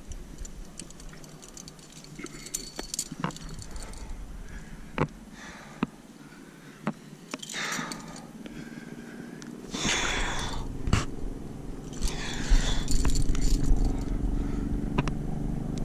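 A rock climber moving up a limestone face: metal gear on the harness clicking and clinking, and hands and climbing shoes scuffing the rock. A few louder rushes of hard breathing come about halfway through and again later, over a low rumble in the second half.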